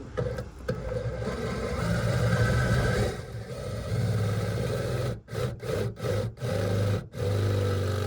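Power drill boring through a metal plate, its motor running with a steady whir, then stopped and restarted in short pulses several times near the end.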